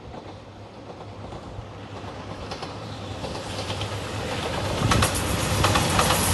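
JR Shikoku 2700 series diesel limited express train approaching and growing steadily louder, its engines running beneath a rising rush of wheel noise. Sharp wheel clicks over the rail joints start about halfway through and get loud near the end.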